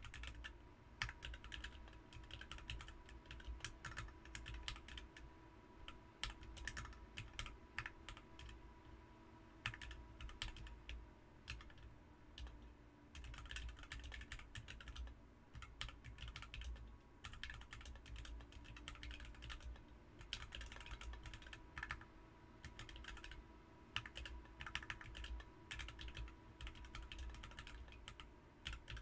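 Typing on a BM43 40% mechanical keyboard fitted with Ms Piggy switches: a fast, continuous run of key clacks in bursts with short pauses.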